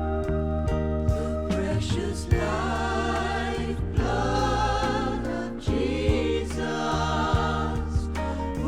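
Gospel choir singing sustained, wavering notes over a band accompaniment, with held instrumental chords at first and the voices coming in about two seconds in.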